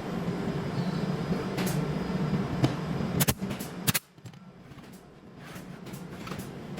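An electric power tool's motor runs steadily with a low hum, gives a couple of sharp clicks, and stops abruptly about four seconds in. It then starts up again and grows louder near the end.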